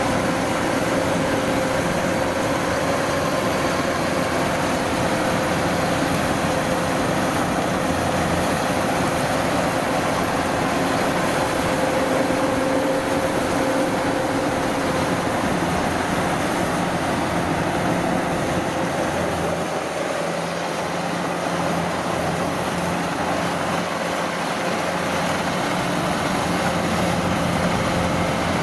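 Tracked rice combine harvester running steadily as it cuts and threshes rice: a continuous engine drone with the machine's whirring threshing works. The low rumble eases slightly about twenty seconds in.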